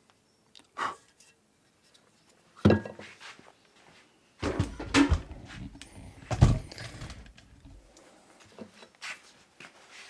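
Knocks, thuds and rumbling bumps from objects being handled and set down on a workbench, the heaviest ones in a cluster from about four to eight seconds in.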